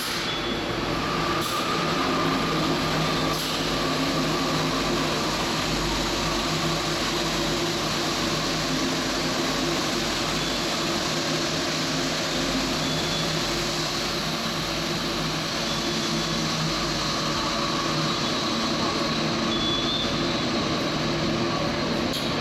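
Santiago Metro Line 2 train sound: a steady hum and rumble with a few faint steady tones.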